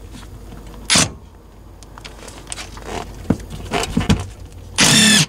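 Ridgid cordless drill with a socket bit run in short trigger bursts: a brief one about a second in and a louder, two-part whirring run at the end, as seat-base bolts are worked loose. In between come small clicks and rubbing from handling the seat's rubber skirt.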